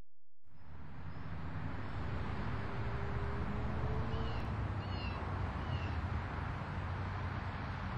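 Traffic on a two-lane road: cars driving past, a steady rumble of tyres and engines that swells slightly as they go by. A bird gives three short high chirps near the middle.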